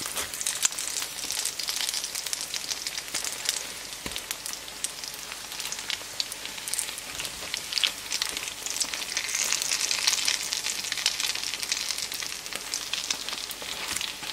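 Grated-potato pancakes (Kartoffelpuffer) frying in hot oil in a pan: a steady, crackling sizzle that is loudest about two-thirds of the way in.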